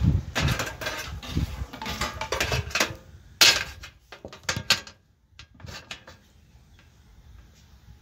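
Small hard clicks, clatters and scraping strokes, like drawing tools being handled and set down on a hard surface. They are busiest in the first half, with the loudest clack about three and a half seconds in, then thin out to a few faint ticks.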